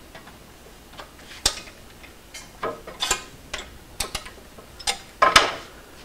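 Hands working a lathe tool and sharpening jig at a grinder that is not running: a scatter of separate clicks and knocks of metal parts being set and adjusted, the loudest about five seconds in.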